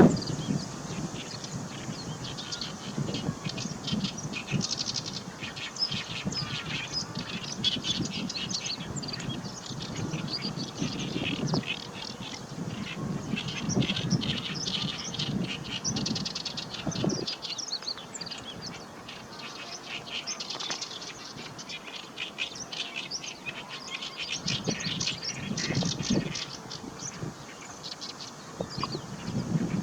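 Great reed warbler singing in long runs of rapid, repeated notes. Gusts of wind buffet the microphone now and then.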